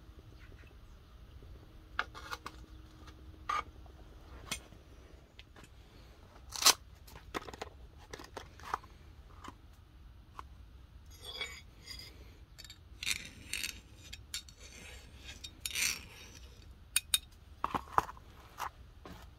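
Sharp metal clinks and short scraping rasps: a small hardness-test file dragged and tapped across a freshly quenched, hardened steel knife blade resting on an anvil. This is a check of the steel's hardness after the quench.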